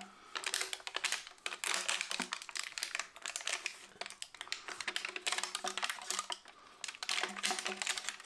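Plastic crinkling and clicking in rapid, irregular crackles as a toilet wax ring with its plastic sleeve is handled and pressed into place.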